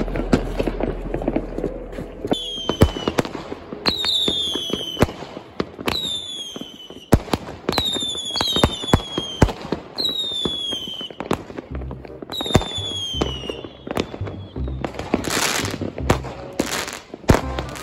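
"Big Boy" firework battery firing: a rapid series of bangs, many shots trailing a falling whistle. Near the end come hissing, crackling bursts.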